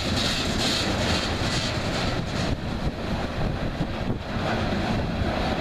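Loaded coal hopper cars of a long freight train rolling past, a steady rumble and rattle of steel wheels on the rail.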